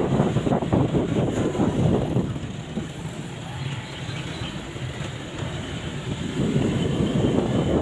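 Low rumbling noise, like wind buffeting the microphone, strong at first, easing off after about two seconds and building up again near the end.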